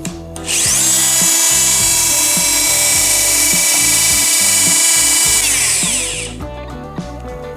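Bosch GOP 30-28 corded oscillating multi-tool switched on. Its motor spins up with a rising whine about half a second in, runs steadily at speed, then is switched off about five and a half seconds in and winds down with a falling whine.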